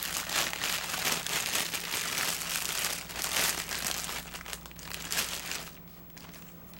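Clear plastic bag crinkling as hands work a spinning reel out of it, dense and crackly, easing off about a second before the end.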